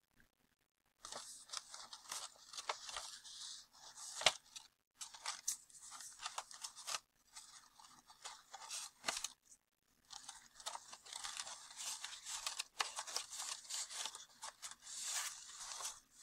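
Construction paper rustling and crinkling in stop-start bursts as fingers tuck glued paper tabs into a paper snout, with small sharp crackles and one stronger snap about four seconds in.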